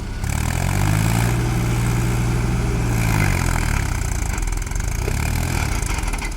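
Diesel engine revving up about a second in, holding the higher speed for a couple of seconds, then dropping back toward idle.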